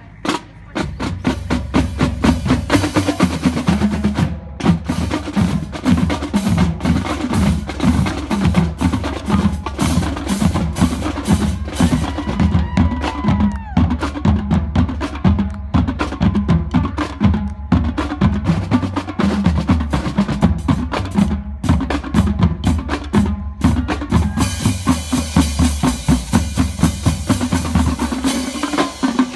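Marching drumline of snare drums and bass drums playing a fast, continuous cadence of dense strokes, with deep bass drum hits under the snares.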